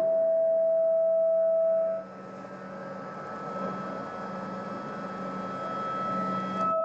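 Electronic drone of held tones with a low hum and hiss beneath. A strong middle tone stops about two seconds in and comes back at the very end, while a higher tone holds steady throughout.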